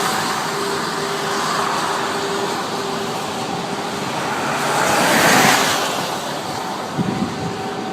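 Car road noise while driving, a steady rush of tyres and wind with a faint constant hum; the noise swells and fades about five seconds in, like a vehicle passing.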